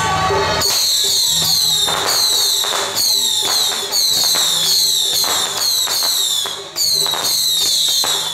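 Whistling firecrackers going off in a rapid string: high falling whistles, about three a second, with light pops. They break off briefly near the end and start again. Before them, band music plays and stops abruptly about half a second in.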